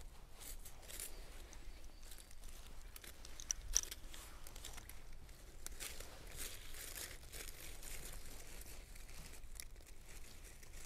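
Gloved hands rustling and crunching through moss, dry leaves and twigs while picking chanterelle-type mushrooms from the ground: irregular scratchy crackles, with one sharper crack about four seconds in.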